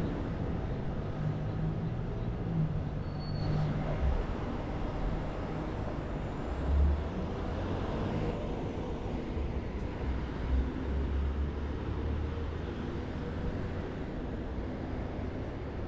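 City road traffic going by: the steady running noise of cars and heavier vehicles, with a deeper rumble swelling about seven seconds in and again a few seconds later.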